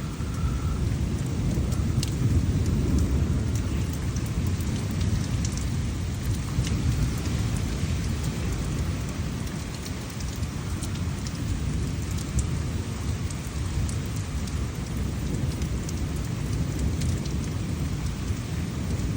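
Thunderstorm: thunder rumbling continuously and deep, with a fainter hiss above it and a few scattered sharp ticks.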